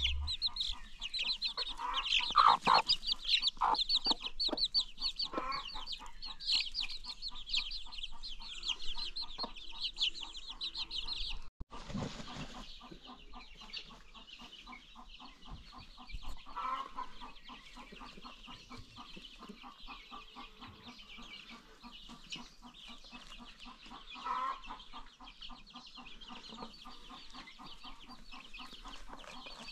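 A flock of baby chicks peeping: many rapid, high-pitched cheeps overlapping, with a few lower, louder calls among them. After a sudden short break about twelve seconds in, the peeping goes on more softly.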